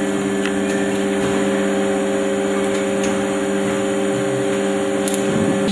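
Extrusion blow molding machine for HDPE bottles running: a steady mechanical hum with several steady tones under an even noise, and a few faint clicks.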